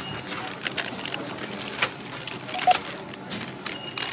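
NCR self-checkout barcode scanner giving one short beep about two-thirds of the way through as an item is scanned, with plastic snack packets crinkling in a hand over the scanner.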